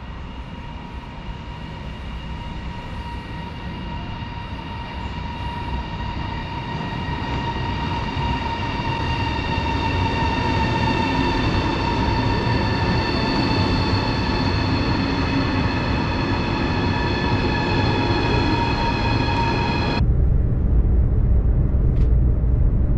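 CRH Hexie high-speed electric train pulling into the platform: a whine of several steady high tones over a noise bed, growing steadily louder for about twenty seconds. Near the end the sound changes suddenly to the low rumble heard inside a moving carriage.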